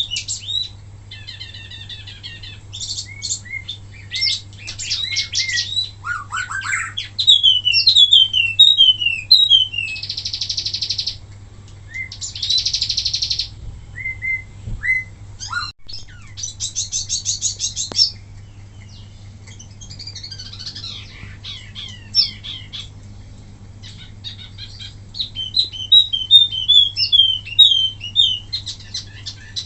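Wambi mini songbird singing a loud, varied song: quick trills, strings of short downward-sliding whistles, and several dense buzzing rattles about a second long, broken by short pauses. A low steady hum runs underneath.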